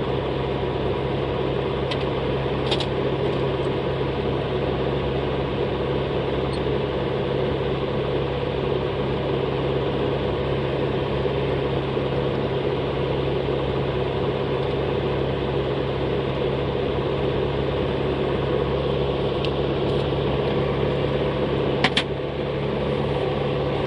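A steady machine hum with a few light clicks, one about three seconds in and a sharper one near the end.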